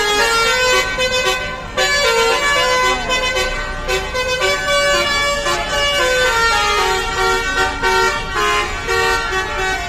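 Bus telolet basuri horn playing a melody: a quick run of held horn notes stepping up and down in pitch, with a brief break about two seconds in.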